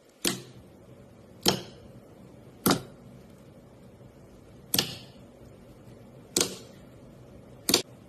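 Six sharp pops from slime being pressed or pulled, spaced irregularly about one to two seconds apart, each dying away quickly.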